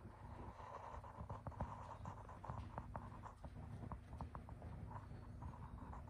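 A horse cantering on arena sand: soft, muffled hoofbeats with light irregular clicks, over a steady low hum.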